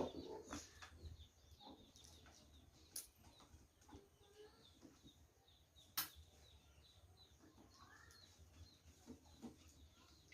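Faint birds chirping in the background, with a few short sharp clicks; the loudest click comes about six seconds in.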